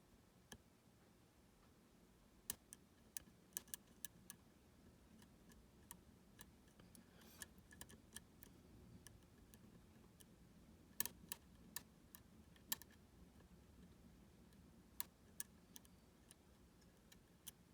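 Faint, irregular metallic clicks and ticks of a lock pick working the spool pins inside a 13-pin U-Shin Showa NX lock, coming in three short bunches over a near-silent background. The pick is scrubbing back through the pins to find ones that have dropped out of place.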